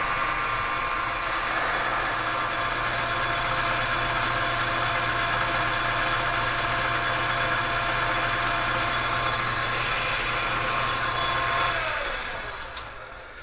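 South Bend lathe running with a steady whine, the chuck spinning. Near the end it winds down with a falling pitch and stops, and a single click follows.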